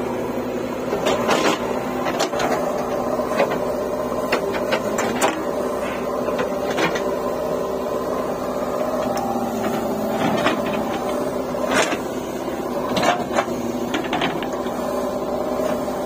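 JCB 3DX backhoe loader's diesel engine running steadily under hydraulic load as the backhoe digs and dumps soil, with irregular clanks and knocks from the bucket and arm.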